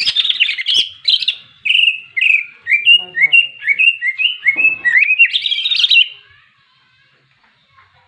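Male green leafbird (cucak ijo) singing a fast run of sharp chirped and slurred notes, some gliding up, some down, that breaks off about six seconds in. This is the aggressive fighting song (ngentrok) that keepers use to stir other cucak ijo.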